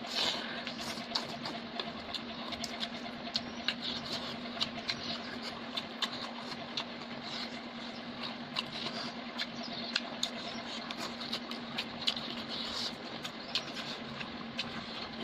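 Close-up eating sounds: chewing and smacking, heard as many short wet clicks at an irregular pace as chicken and rice are eaten by hand. A steady low hum runs underneath.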